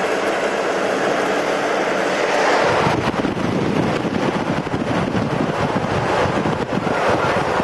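A car driving fast on a dirt road, heard from inside as a steady rush of tyre and engine noise. About three seconds in, wind starts buffeting the microphone with a rough, gusty noise that lasts until near the end.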